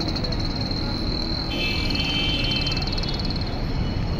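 Street traffic rumble with a thin, steady, high-pitched tone over it. About a second and a half in, a fast buzzing trill joins for under two seconds.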